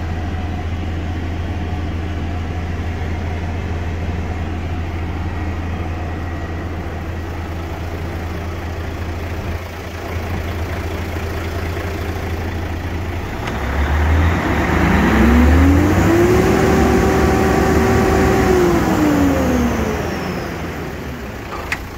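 Mercedes-Benz Actros 2643 tractor unit's V6 diesel engine idling steadily. Just past halfway it is revved up, held at higher revs for a few seconds, then falls back toward idle near the end.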